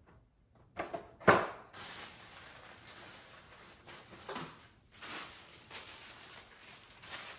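Unpacking a boxed baby high chair: a few knocks, the loudest about a second in, then steady rustling as the cardboard packaging and parts are handled.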